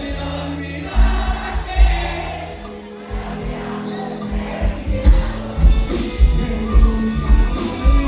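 Live norteño band music with a strong bass line and a steady beat, and voices singing over it.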